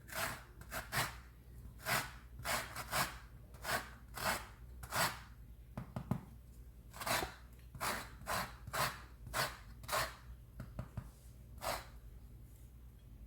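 Lemon rubbed over a fine grater to zest the peel: a series of short rasping strokes, one or two a second, stopping near the end.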